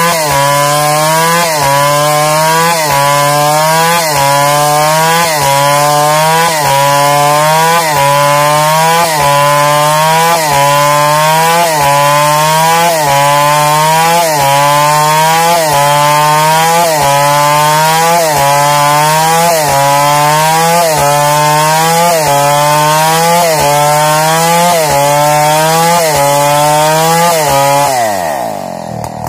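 New West 707 two-stroke chainsaw with a 36-inch Oregon bar ripping a log lengthwise into a plank under full throttle. The engine pitch rises and sags in a regular cycle a little faster than once a second as the chain bites. Near the end the engine winds down toward idle.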